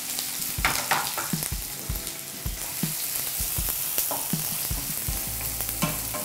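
Chopped onions sizzling in hot oil in a non-stick kadai, with a spatula scraping and tapping against the pan in irregular strokes as they are stirred.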